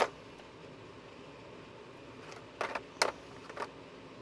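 Hand tools being handled while removing transmission brackets under a pickup: a sharp click at the start, then a few clinks and clatters about two and a half to three and a half seconds in.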